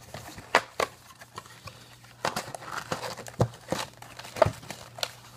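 Cardboard trading-card hobby box being handled and its lid opened, with the foil card packs inside rustling and crinkling, punctuated by several sharp taps and clicks of cardboard and packs.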